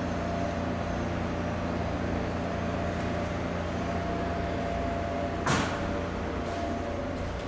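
Steady vehicle running noise, a constant hum with a low drone, and a brief knock or rattle about five and a half seconds in.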